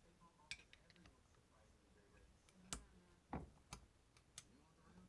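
A few light, scattered clicks and taps from handling the parts of a disassembled marine carburetor, over a quiet room.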